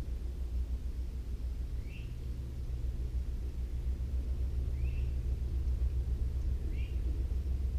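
A steady low rumble with no breaks. Over it a bird gives a short rising chirp three times, two to three seconds apart.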